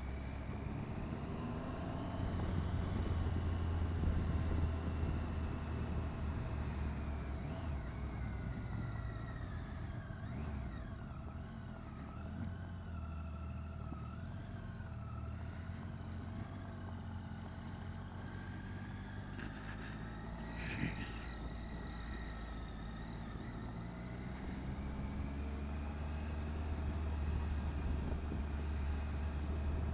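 Motorcycle engine running under way, with a steady low rumble of wind on the microphone; the engine note rises and falls slowly through the bends, dipping in the middle and climbing again near the end, with one short click about two-thirds of the way through.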